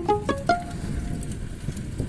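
Background music: quick plucked string notes in the first half-second, then a held note that fades out.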